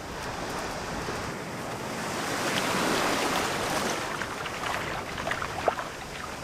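A wave washing up a sandy beach, swelling to a peak about three seconds in and then fading, with fine crackles of fizzing foam as the water drains back into the sand.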